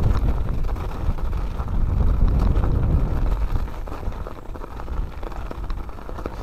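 A mountain bike rolling down a snowy, grassy trail: wind buffeting the microphone over the rumble of the tyres on snow, with scattered light clicks and rattles. It eases off somewhat about four seconds in.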